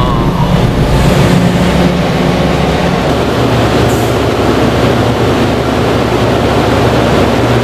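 Steady low engine drone on a ferry's vehicle deck. The deepest rumble drops away about three seconds in, leaving a steady hum.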